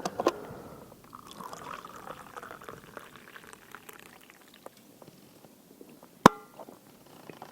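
Liquid being poured for a couple of seconds, with a slight rising pitch, then a single sharp clink with a short ring about six seconds in.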